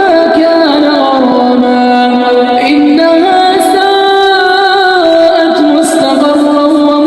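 A single melodic voice reciting in long, held notes that step slowly up and down, in the style of Quran recitation (tilawat).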